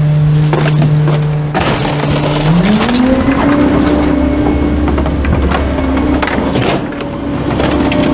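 Rear-loader garbage truck's engine idling, then revving up to a higher steady speed about two and a half seconds in as the packer blade cycles to compact the load, with clattering and knocks throughout.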